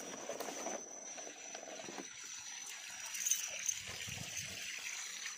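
Faint lapping of lake water against a small boat, with a steady high-pitched tone.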